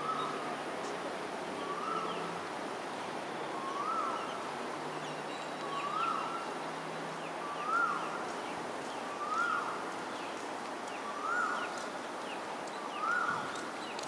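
An animal call repeated about eight times, roughly every two seconds: each is one short note that rises, holds briefly and drops in pitch, over steady outdoor background noise.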